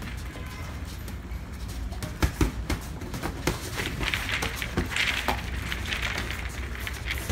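Boxing gloves striking during sparring: a quick flurry of sharp punch impacts about two seconds in, then scattered single blows.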